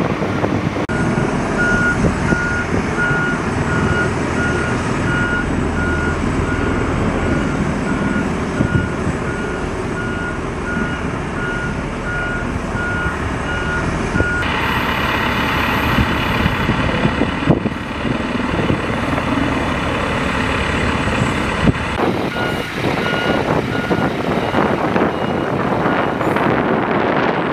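Medium Tactical Vehicle Replacement truck's diesel engine running while its reversing alarm beeps in a steady series, the sign that the truck is backing up. The beeping stops about halfway through and comes back for a few seconds near the end.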